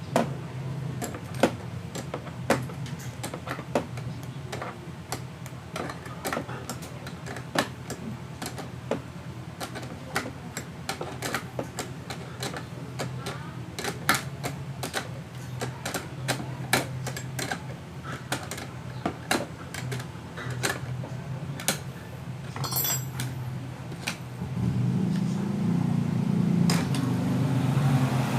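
Irregular small metal clicks and taps of screws, washers and an Allen key being handled as bolts are threaded in by hand, over a steady low hum. Near the end a louder low rumble comes in.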